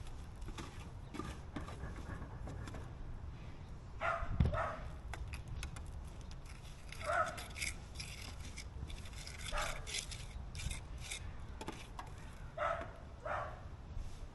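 A dog barking in short single calls every few seconds, some in quick pairs, over light clicking and scraping.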